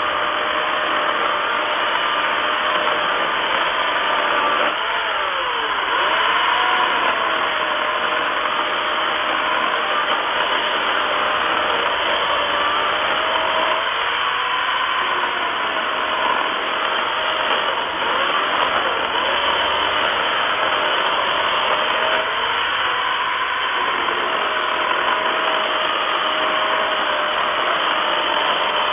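1800 W corded electric chainsaw with a 16-inch bar cutting through a log. Its motor and chain run steadily and loudly, and the pitch sags and recovers several times as the chain bites into the wood.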